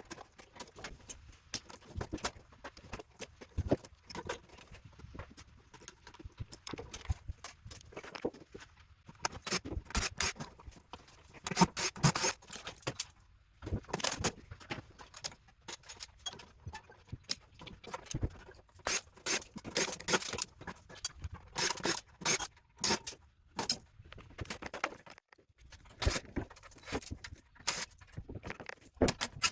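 Metal parts and wires clinking, rattling and scraping on a work table as a power supply unit is taken apart by hand, with irregular knocks and clatters throughout.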